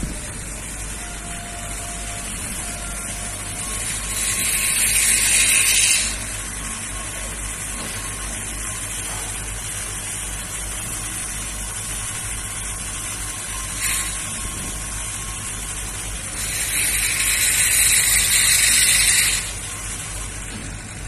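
Crawler crane running steadily, with two loud hissing bursts from its machinery, the first about four seconds in lasting some two seconds and the second, about three seconds long, near the end, plus a short one between them.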